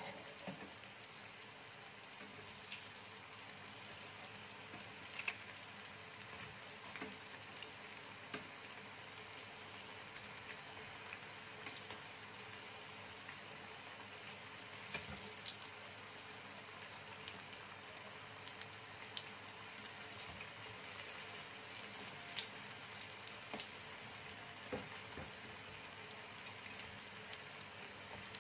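Breaded pieces of food shallow-frying in hot oil in a skillet: a steady sizzle dotted with small pops and crackles, a few louder ones about halfway through.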